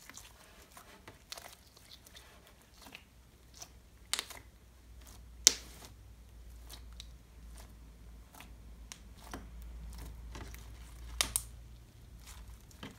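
Hands kneading, pressing and pulling a sticky blue glitter slime, low on activator, giving irregular wet clicks and pops as it squishes and pulls away from the fingers and board. The two sharpest pops come about five and a half seconds in and near eleven seconds.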